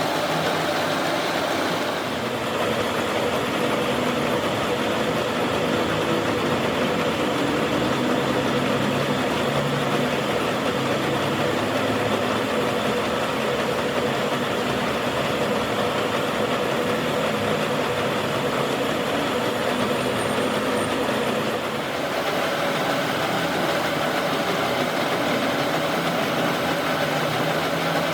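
A machine running steadily, with an even mechanical noise and a steady hum that barely changes.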